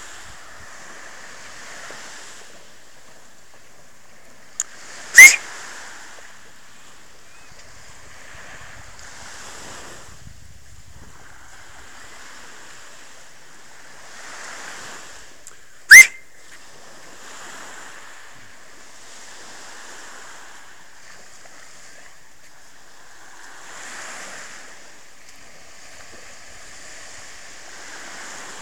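Small waves lapping and washing onto a sandy shore, swelling every few seconds. Two loud, short, sharp whistles rising in pitch come about five and sixteen seconds in.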